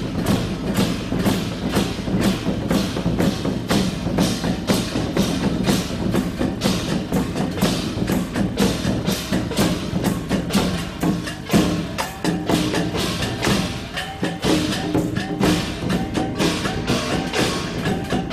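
Taiwanese temple-procession gong-and-drum troupe playing: a large barrel drum beaten with sticks, with hand cymbals clashing, in a fast, steady rhythm of about four beats a second.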